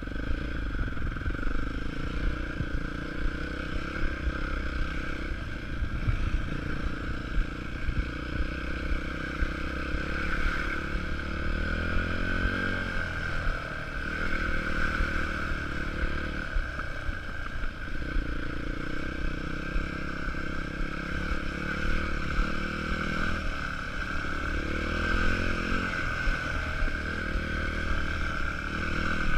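Yamaha WR250F's single-cylinder four-stroke engine running under way, its pitch rising and falling repeatedly as the throttle opens and closes over the rough track.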